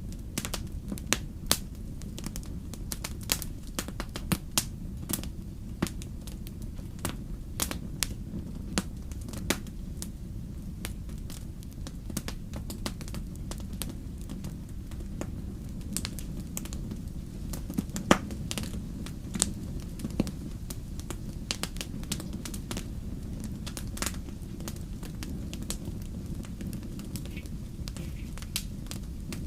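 Campfire crackling, with irregular sharp pops and snaps of burning wood, the loudest about 18 seconds in, over a steady low rumble.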